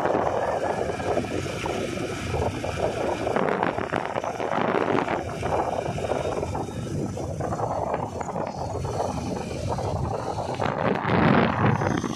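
Motorcycle riding at speed: running engine mixed with rattling and wind buffeting on the microphone.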